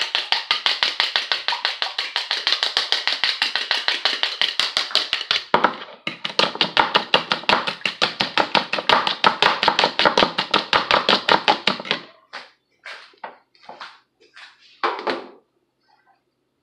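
Eggs being whisked by hand in a plastic bowl: fast, even clicking strokes, about seven a second, with a short break about five and a half seconds in. The whisking stops about twelve seconds in, and a few scattered knocks follow.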